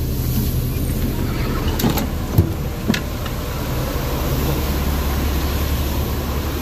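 City bus's diesel engine idling with a steady low rumble under an even hiss of rain. A few short knocks come about two to three seconds in as the bus's rear doors open and a passenger steps off.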